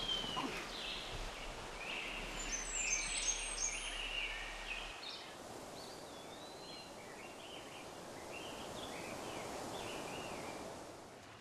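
Small birds singing and chirping over a steady outdoor hiss. The calls are thickest in the first few seconds, then thin out and fade near the end.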